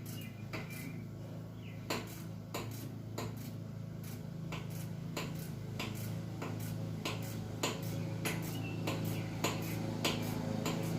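A socket ratchet and metal tools clicking and tapping in an uneven run of sharp clicks, over a steady low hum.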